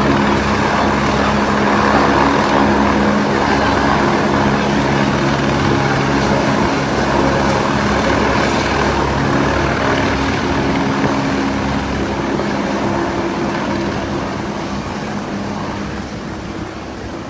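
Steady engine drone with a low, even hum, slowly fading over the last few seconds.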